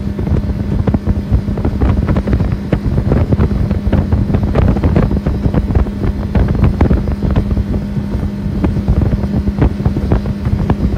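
Small motorboat under way: the outboard motor's steady drone, with wind buffeting the microphone and uneven thumps as the hull runs through the chop.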